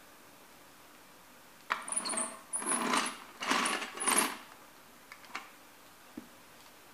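A sneaker sole pressing and grinding down on a small toy truck with a metal cab, in about four bursts of scraping and creaking starting just under two seconds in, with high squeaks of rubber. A couple of faint clicks follow.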